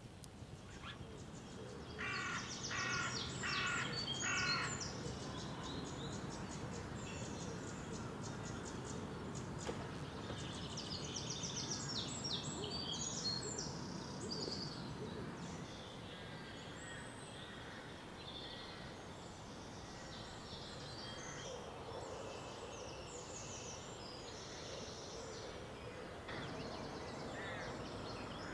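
Woodland birds calling and singing, with a run of about four harsh, evenly spaced calls a few seconds in, over a low steady background rumble.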